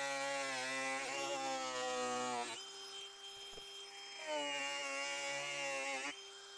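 Cordless angle grinder cutting through corrugated plastic pipe, its motor holding a steady whine that drops in pitch under load. The disc is melting the plastic as it cuts. The motor runs up higher and quieter for about a second and a half midway and again near the end, as the cut eases off.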